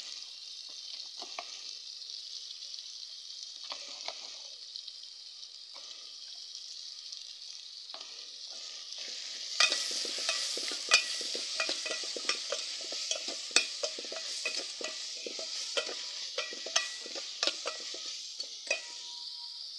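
Chopped raw mango frying in ghee in a metal pot, sizzling steadily. From about ten seconds in, a metal ladle stirs it, scraping and clicking against the pot.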